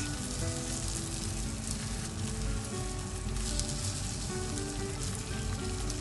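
Rolled chikuwa with a cheese sauce topping sizzling steadily as they fry on a non-stick sheet in a frying pan, with quiet background music.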